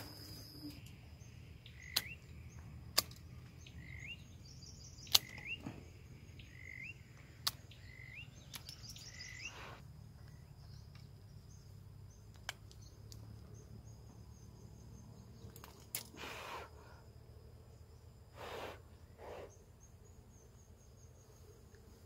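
Sharp snips of hand pruning shears cutting bamboo twigs, a handful of single clicks several seconds apart. Short rising bird chirps repeat through the first half, over a faint steady insect whine.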